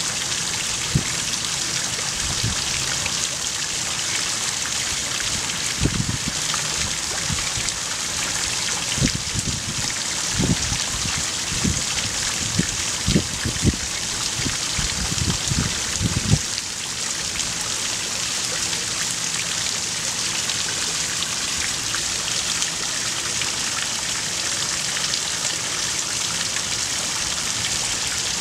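Stone courtyard fountain running steadily: several streams of water pouring from lion-head spouts and the upper basins and splashing and trickling into the pool below. A cluster of short, low thumps comes in the middle.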